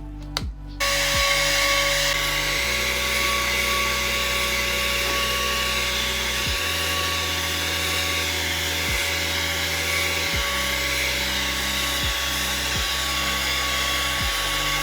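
A small high-speed electric motor switches on about a second in and runs steadily, with a whine and a rushing hiss. Background music with changing bass notes plays beneath it.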